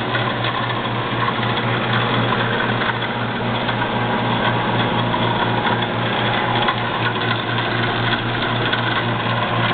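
ENCO 7" x 12" horizontal band saw running free with its blade not yet cutting: a steady motor hum with the whir of the blade over it.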